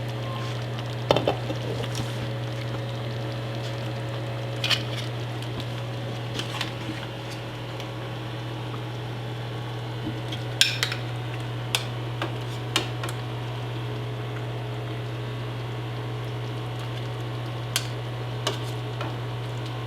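Metal utensils clinking against pots and dishes while food is handled and served, a dozen or so sharp clinks scattered over a steady low hum.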